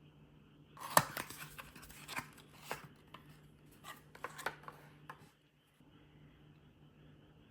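Product packaging being handled and opened by hand: a run of crackles, clicks and rustles lasting about four seconds, with the sharpest click about a second in.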